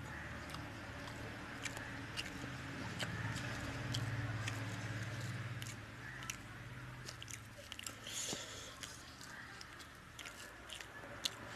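Close-up eating sounds of fish curry and rice eaten by hand: chewing and biting with frequent wet mouth clicks and smacks, and squelches of rice being mixed in the curry with the fingers.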